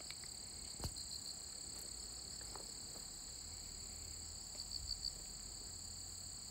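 Insects singing: two steady, high-pitched trills, with a short run of about four quick chirps about four and a half seconds in. A single light click just under a second in.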